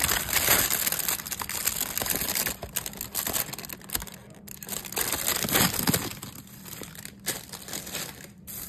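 Takeout bags rustling and crinkling as hands open and handle them: a thin white bag around egg rolls and a brown paper bag. The rustling is dense for the first couple of seconds, again around the middle, then lighter.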